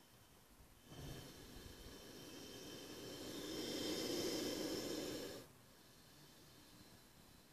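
Cobra with its hood spread giving one long defensive hiss, starting about a second in, growing louder and then cutting off suddenly after about four and a half seconds.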